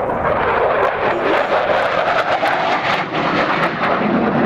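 Fast jet fighter's engine running loud during an aerobatic pass: a steady, dense rushing noise with a crackle through it.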